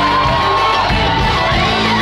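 Loud live Greek popular music over the PA with a steady beat and sung or played melody lines, and a crowd cheering and shouting along.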